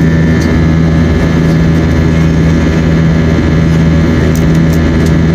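Steady drone of an Airbus A321 airliner heard inside the cabin: jet engine and airflow noise with a constant low hum.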